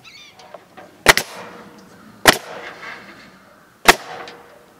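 Senco 7/16-inch crown pneumatic stapler firing into western red cedar shingles: three sharp shots, the first a quick double, each about a second and a half apart.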